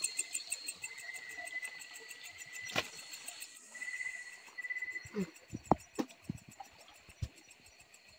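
Night chorus of crickets, steady high-pitched trilling with a fast pulsing beat. A few short knocks and scuffs of footsteps on stream rocks come around the middle.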